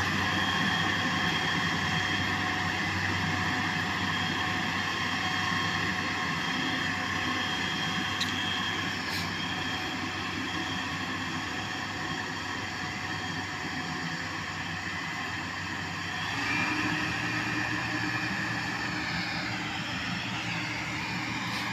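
Motor grader's diesel engine running steadily at work. About three-quarters of the way through its note shifts and grows a little louder.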